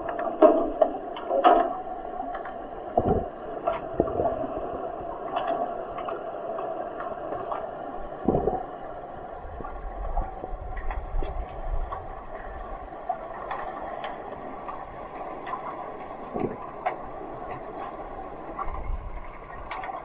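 Underwater sound in a swimming pool, picked up by a submerged camera during an underwater hockey game: a steady hum with scattered dull knocks and clicks from the players' play.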